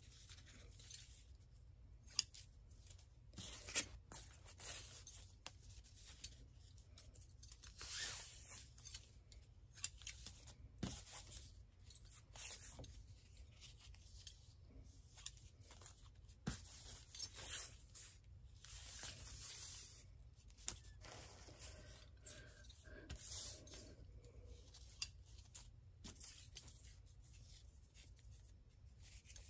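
Scissors cutting thin plastic tablecloth into strips: a run of separate snips with the crinkle of the loose plastic, broken by a few sharp clicks.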